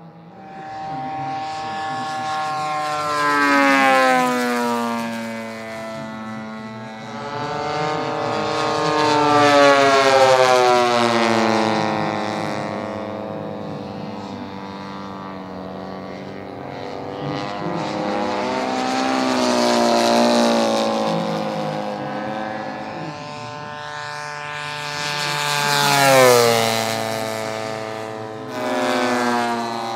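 Engines of large-scale radio-controlled model warbirds making repeated fast, low passes. Each pass swells in loudness and the engine pitch drops as the plane goes by, about five times. The loudest pass, with the sharpest drop in pitch, comes near the end.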